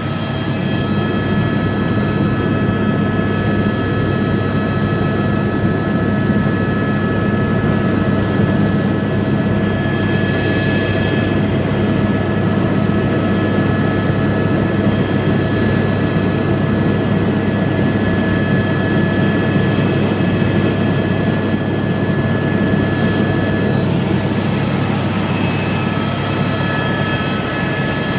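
Helicopter in flight heard from inside the cabin: steady, loud rotor and engine noise with a constant high whine over it.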